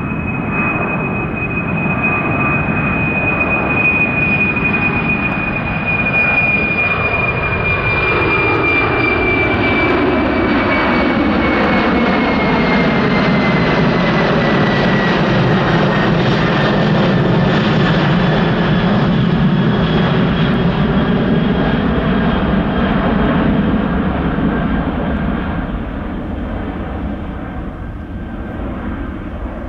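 Boeing 747-400F's four turbofan engines at takeoff power, a steady jet roar as the freighter climbs out overhead. A high fan whine slowly falls in pitch as it passes, and the roar fades near the end as the plane flies away.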